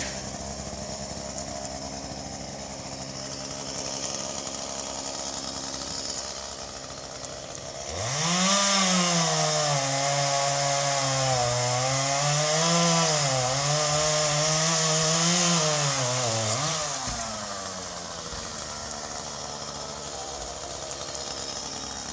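Chainsaw running at low speed, then throttled up about eight seconds in and cutting for about nine seconds, its pitch sagging and recovering under load, before dropping back to a low run.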